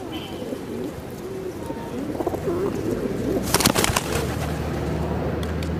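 A flock of white doves cooing, with wavering low calls overlapping. About three and a half seconds in comes a brief burst of sharp flutters as the flock takes off, followed by a low steady hum.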